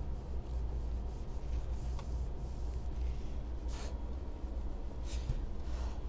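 Cotton fabric being handled and smoothed by hand: a few soft brushing rustles over a steady low hum.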